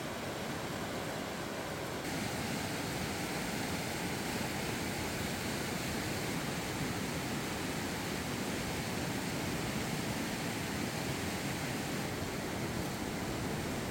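Glacier-fed mountain river, the Matter Vispa, rushing fast over a rocky bed: a steady, even rush of water that grows a little louder about two seconds in.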